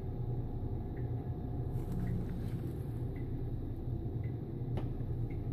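Steady low hum with a few faint ticks, and a single sharp click about five seconds in.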